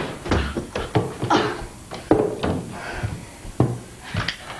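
About a dozen irregular knocks and thuds over four seconds, sharp and unevenly spaced.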